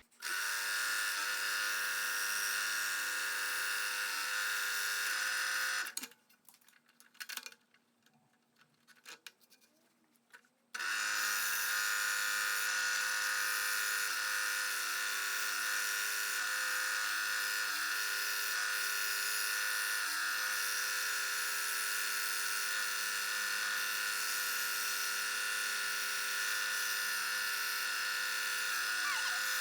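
Scroll saw running steadily, cutting the internal fretwork in thin Baltic birch plywood. It stops about six seconds in and starts again about five seconds later, as when the blade is rethreaded for the next internal cut.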